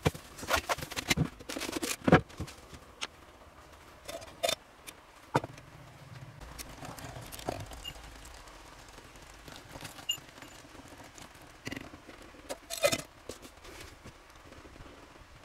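Handling of camp cookware: a bag rustling and clattering for the first two seconds, then scattered clinks and scrapes of chopsticks in a stainless steel pot on a gas-canister stove over a low steady rumble, and a louder clank about thirteen seconds in as the lid goes on the pot.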